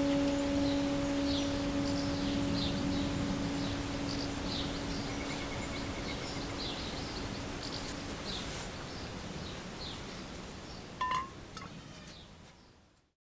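A Tibetan singing bowl rings with a steady low tone and slowly dies away over about eight seconds, with small birds chirping in the background. The sound fades out near the end.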